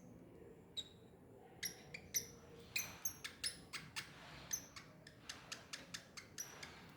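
Baby squirrel squeaking: a run of short, high-pitched chirps, one near the start, then coming irregularly about two or three a second from about a second and a half in.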